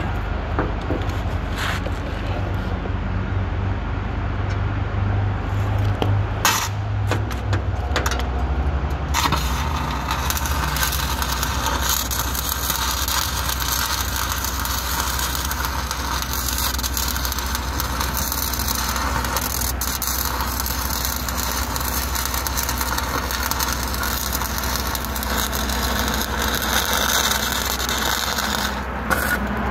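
Stick welding with a 5/32 Lincoln 6011 rod at about 101 amps. The arc crackles and hisses steadily from about nine seconds in until just before the end, after a few short clicks and taps. A steady low engine hum runs underneath.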